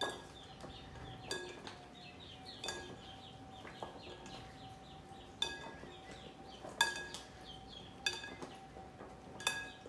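Serving spoons knocking against a glass mixing bowl as vegetables are tossed in oil, giving irregular sharp clinks with a short ring, roughly one every second or two.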